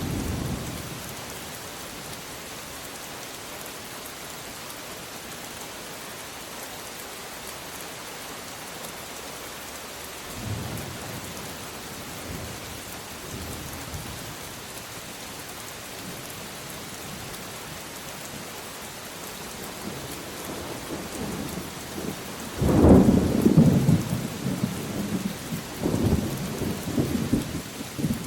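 Steady rain hissing with rolling thunder: a rumble at the start, a fainter one about ten seconds in, and the loudest peal near the end, rumbling on for several seconds.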